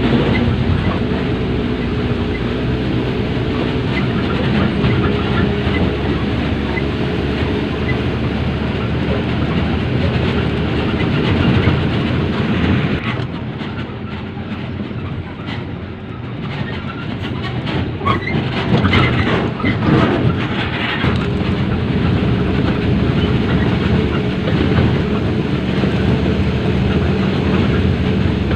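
Heavy vehicle's engine running steadily with a rattling, clattering noise over it; it eases off for a few seconds about halfway, then a run of clicks and knocks follows.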